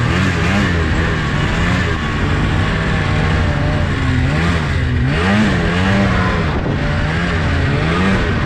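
Vintage snowmobile engine running under way, its revs rising and falling again and again, over a steady rush of noise.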